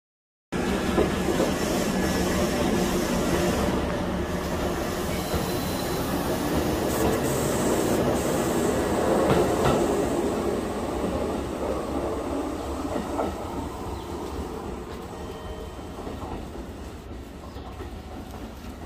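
Kintetsu electric commuter train running along the station platform, its wheels rumbling on the rails. It is loudest about halfway through and fades away toward the end.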